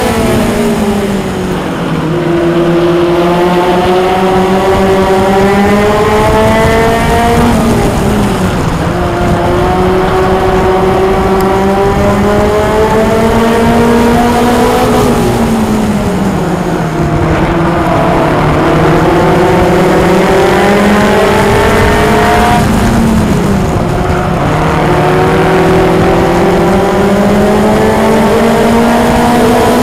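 Mini stock race car's engine heard from on board at racing speed: its pitch climbs steadily along each straight, then drops sharply as the driver lifts for the turn, about four times.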